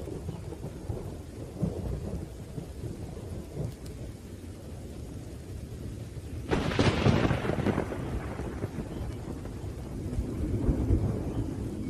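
Thunderstorm: steady rain under a continuous low rumble of thunder, with a sudden sharp thunderclap a little past halfway that dies away into rumbling, and a smaller swell of thunder near the end.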